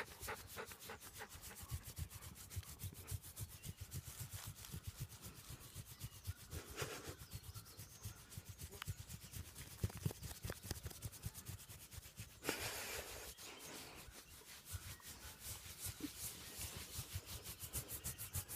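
A hand scratching a wolfdog's belly fur close to the microphone: quick, even scratching strokes, several a second, with a longer rustle of fur about two-thirds of the way in.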